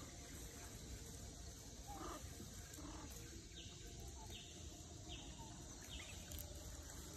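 Quiet outdoor forest background with a steady hiss. In the second half a short, high chirp repeats four times at even intervals, about three quarters of a second apart.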